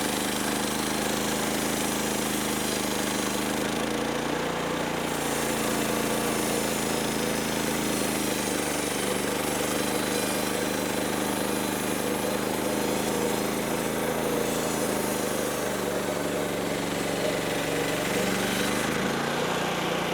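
Manual bandsaw sawmill running steadily, its engine driving the band blade at an even speed.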